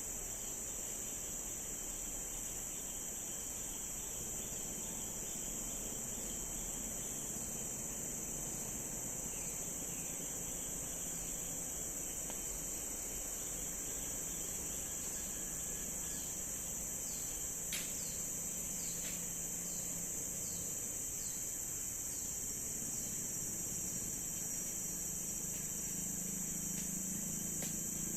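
Steady, high-pitched drone of crickets or cicadas. A run of short falling chirps comes through in the middle, and a single sharp click sounds about eighteen seconds in.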